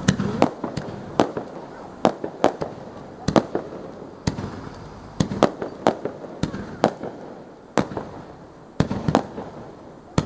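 Fireworks display: a string of sharp bangs at irregular intervals, some coming in quick clusters of two or three.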